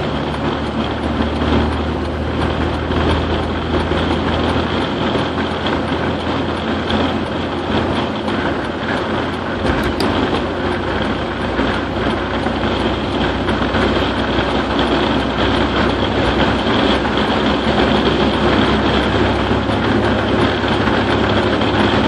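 Steady road noise inside a Toyota pickup's cab cruising on a concrete highway: tyre roar and engine hum, continuous and unchanging.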